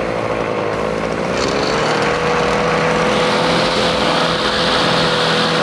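Brush cutter engine running just after starting. Its speed rises about one and a half seconds in and then holds steady at high revs, turning the cutter shaft through the refitted clutch.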